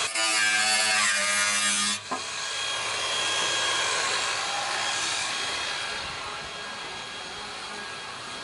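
Handheld power tool cutting at a car's fender and side skirt. Its motor runs at a steady pitch for about two seconds and cuts off sharply, then a rough, even rasping of cutting follows and slowly fades.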